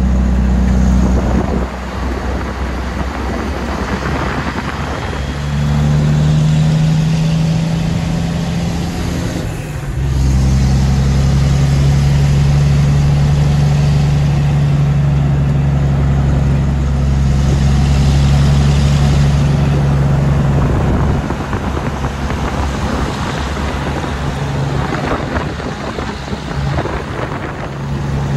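Tractor-trailer's diesel engine pulling uphill with an empty trailer, heard from inside the cab. The engine note changes in steps as the driver works the gears through the curves, with a short dip about ten seconds in like a gear change, and it falls back to a rougher, less even sound from about twenty seconds on.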